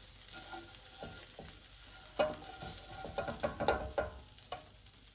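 A slotted spatula scraping and tapping against a nonstick frying pan while pieces of cooked egg and biscuit are pushed about and lifted, with a few sharp knocks in the second half.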